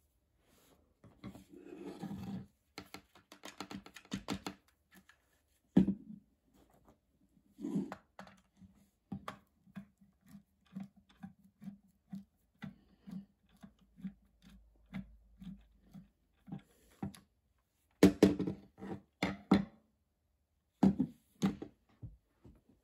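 A Stanley hot glue gun's plastic housing handled on a workbench during disassembly: scraping and quick clicks, a run of light taps about two a second, and a few sharp knocks, the loudest near the end.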